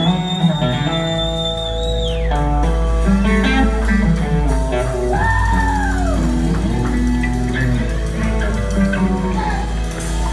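Live blues-rock band playing, led by an electric slide guitar solo over bass and drums. The guitar slides up to a high note at the start and holds it for about two seconds before sliding down, then plays another arching slide around the middle.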